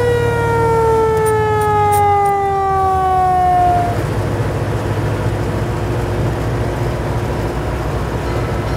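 Fire truck siren winding up quickly, then sliding slowly down in pitch and fading out about four seconds in. The open 1941 American LaFrance fire truck's engine and road noise run steadily underneath.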